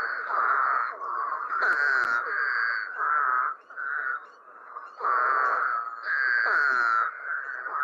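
Eastern spadefoot toads calling: short, nasal, whiny calls, each about half a second to a second long, coming one after another and overlapping, some dipping in pitch at the end. A fainter high note recurs behind them.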